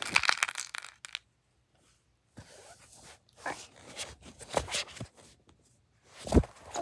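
Candy and wrappers rustling and clicking in a plastic bowl, then after a second's pause, scattered knocks and rubbing as the phone is picked up and handled, with one sharp knock near the end.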